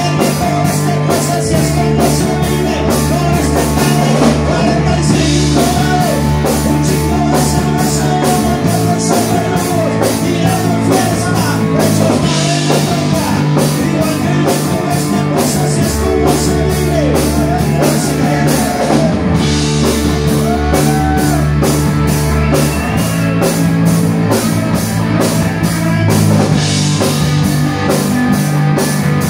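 Live rock band playing: electric bass, electric guitar and drum kit with a steady beat, and a man singing into a microphone over the PA.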